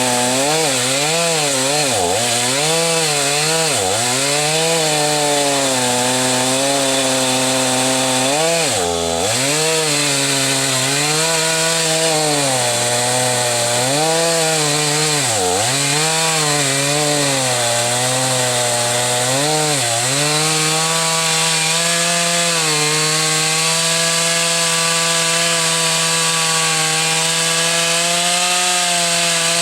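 Gas chainsaw cutting wood, its engine pitch dipping again and again as the chain bogs in the cut and then recovering. In the last third it holds a steady high pitch.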